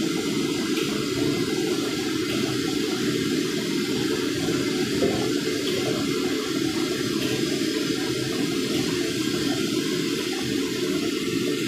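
Potato strips deep-frying in hot oil in a steel wok: a steady bubbling sizzle.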